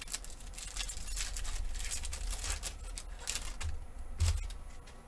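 Wrapper of a basketball trading-card pack being torn open and crinkled in the hands as the cards are slid out, an irregular run of crackles. A louder soft thump about four seconds in.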